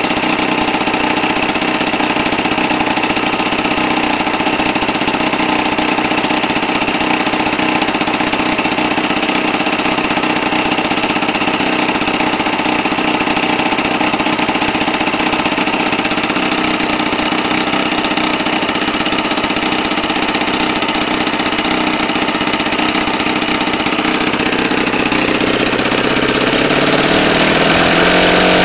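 Enya 90 four-stroke glow engine running open-exhaust with no muffler, turning a 14x8 propeller at a steady speed, then picking up speed over the last few seconds.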